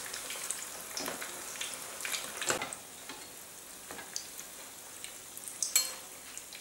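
Calf-brain kefta patties frying in hot oil in a pan, a steady sizzle that eases a little about halfway. A few sharp clicks of a metal spatula and spoon against the pan as the patties are turned.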